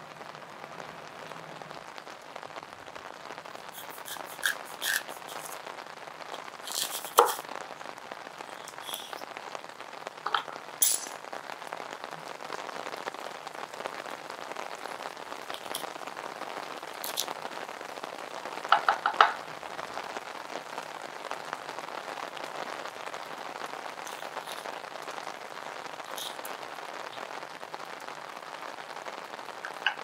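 Steady rain, with a scattering of short knocks and clinks from a knife and a small metal spoon on a wooden cutting board as a pear is halved and cored; a quick cluster of three clinks comes a little past the middle.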